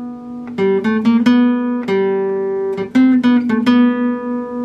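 Acoustic guitar strumming and picking chords in a short instrumental passage, the notes ringing out and fading between strokes.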